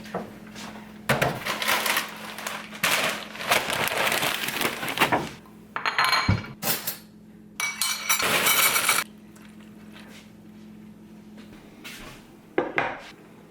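Hard objects clattering and clinking, in several bursts through the first two-thirds, then quieter with one more clatter near the end.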